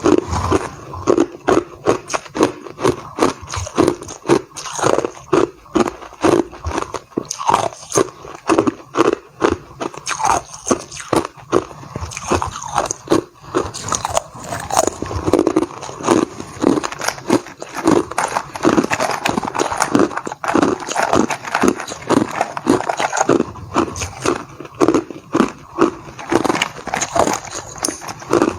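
Hard clear ice being bitten and chewed close to the microphone: a fast, continuous run of loud crunches, about two to three a second.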